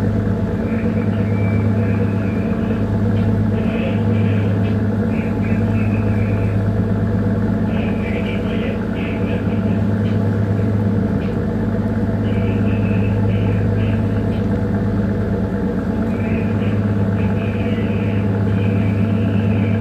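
A bunker tanker's diesel engine running steadily under way, a deep even drone heard on board. Faint high-pitched sounds come and go every few seconds.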